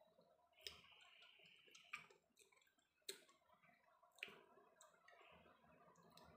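Faint sounds of eating by hand from a plate: four short, soft clicks, each a little over a second apart, with quiet rustle between them.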